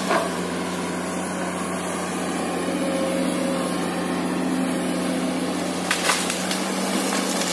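Komatsu PC200 excavator's diesel engine running steadily under hydraulic load. There is a sharp crack at the start and a pair of cracks about six seconds in, from wood snapping as the boom pushes a tree over.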